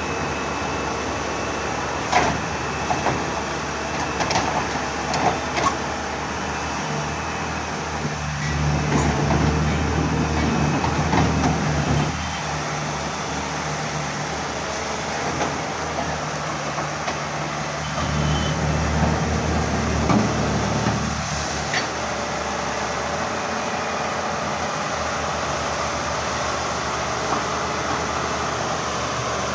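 Excavator diesel engine running steadily, its note going up and louder twice for a few seconds. Several sharp clanks and knocks in the first few seconds, and another about twenty-one seconds in.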